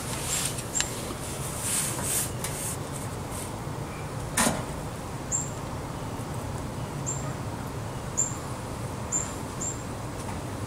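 A four-eyed opossum shifting in cloth bedding inside a foam nest box: faint rustling and scratching, with one sharper scrape about four and a half seconds in. Short high chirps come and go several times.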